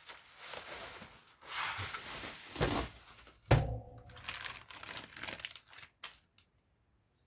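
Packaging being handled: rustling and crinkling, with one loud thunk about three and a half seconds in as something is set down, briefly ringing, then lighter handling noises that stop near the end.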